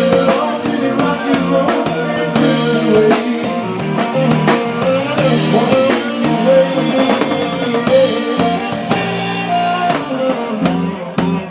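Music with a drum kit keeping a steady beat under melodic instruments.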